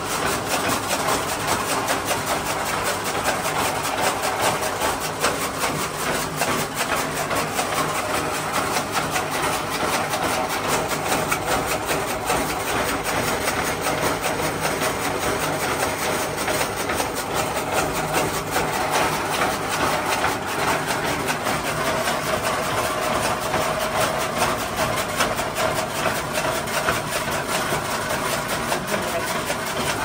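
An engine running steadily, with a fast, even, unbroken beat.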